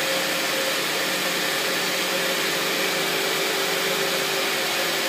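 Rebuilt vertical multistage centrifugal well pump, driven by a three-phase 380 V electric motor, running steadily after priming: an even motor hum with a broad hiss. It runs smoothly on its newly replaced bearings, without the racket of the worn ones.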